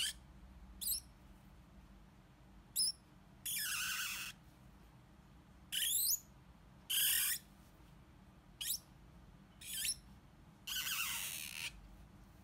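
Black felt-tip marker squeaking and scratching on card as outline strokes are drawn: about nine separate strokes, some short squeaks and some lasting most of a second, over a faint low steady hum.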